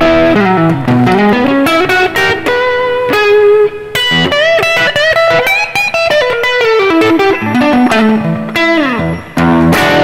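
PRS SE Custom electric guitar with a roasted maple neck, on its neck humbucker, played through a Roland Cube amp's overdrive with reverb: fast single-note lead runs with bends and vibrato, with brief gaps about four and nine seconds in. The tone is crunchy.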